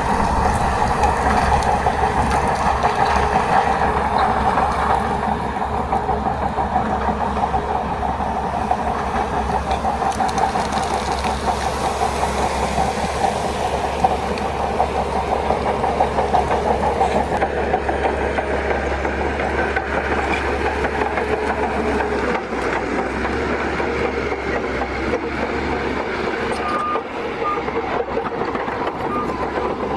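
Bulldozer's diesel engine running steadily under load with a continuous rattling clatter, as it pushes earth.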